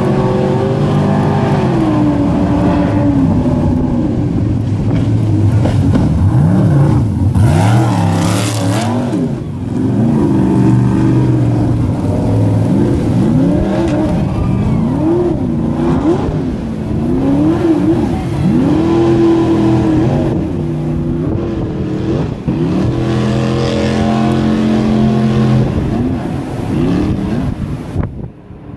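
Racing jet boat's engine running hard, its pitch sweeping up and down again and again as the throttle is worked through rapids.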